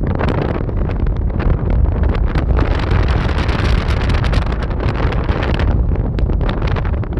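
Strong wind buffeting the microphone: a heavy rumbling roar with crackling, gusting harder for a few seconds in the middle.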